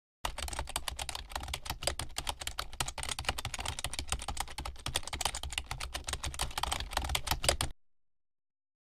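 Fast, continuous typing: a dense run of key clicks that stops suddenly about a second before the end.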